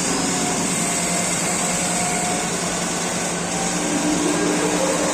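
Steady mechanical whir and hum of a CNC machine running, with a high hiss over a constant low hum.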